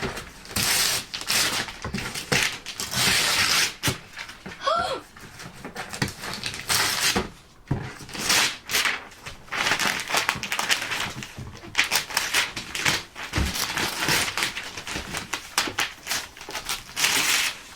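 Gift wrapping paper being torn and crumpled as a present is unwrapped, in irregular rustling, ripping bursts, with a brief high child's squeal about five seconds in.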